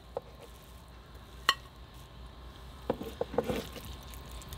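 Kitchen tongs clicking and tapping as slices of cooked brisket are lifted off a wooden cutting board. A few light clicks come, a sharper one about a second and a half in and a quick cluster near three seconds in.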